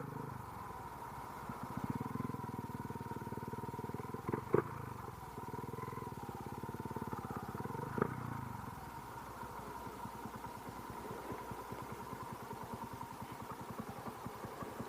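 Motorcycle engine running, picked up by an SJCam action camera microphone covered with a DIY microfiber-cloth wind muff, with little wind rush. Two brief knocks come about four and a half and eight seconds in.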